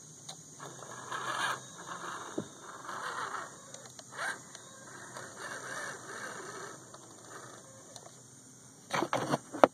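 Axial SCX10 RC crawler's electric motor and geared drivetrain running in uneven bursts with squealing, scraping and ratcheting gear noise as the truck churns through wet mud; the rear axle is slipping. A cluster of loud sharp clicks comes near the end.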